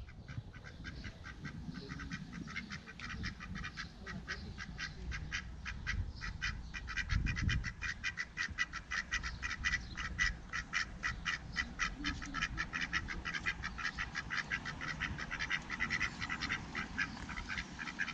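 Domestic ducks quacking in a fast, steady run of short quacks, several a second.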